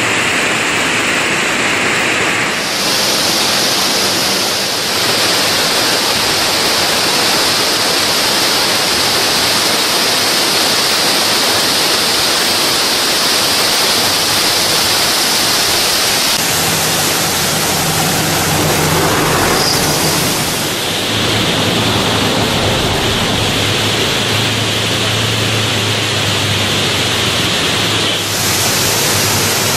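Waterfall in heavy, rain-swollen flow: a loud, steady rush of falling water that shifts abruptly in tone several times.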